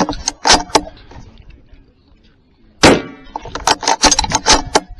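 Bolt-action precision rifle: a few sharp metallic clicks, then one loud shot about three seconds in, followed by a quick run of clicks and clacks as the bolt is cycled.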